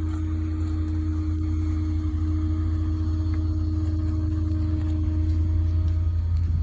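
A vehicle engine idling steadily, a constant low hum with a steady higher tone over it.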